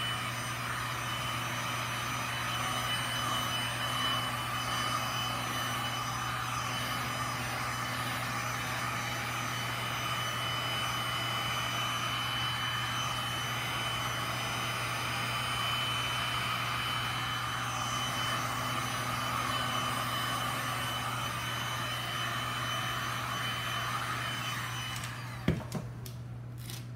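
Electric heat gun running steadily, a blower rush with a low hum and a thin high whine, switched off with a click shortly before the end.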